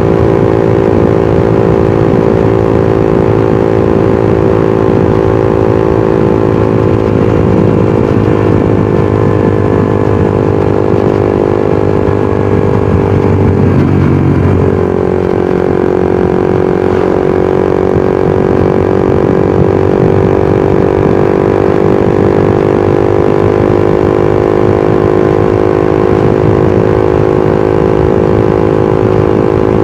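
Suzuki GSX-R150's single-cylinder engine and exhaust running steadily at cruising speed, heard from the bike. About halfway through, the revs dip briefly, then climb back up.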